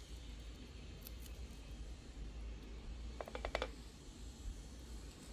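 A quick run of five or six small clicks, a little after three seconds in: a metal fork tapping against a porcelain plate as it is pushed into a slice of glazed braised pumpkin. A faint low hum runs underneath.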